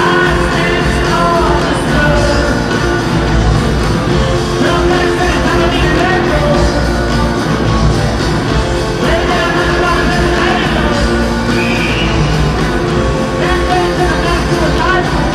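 Rock band playing live with a lead singer, heard loud and continuous from among the audience.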